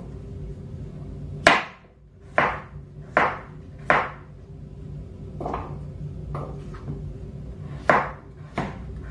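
Chef's knife chopping firm, peeled squash on a plastic cutting board: about eight sharp knocks of the blade reaching the board, unevenly spaced, the first the loudest.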